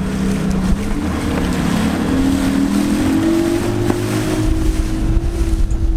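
Flats boat's outboard motor accelerating, its pitch rising steadily over the first few seconds and then holding at cruising speed, with water rushing past the hull and wind on the microphone.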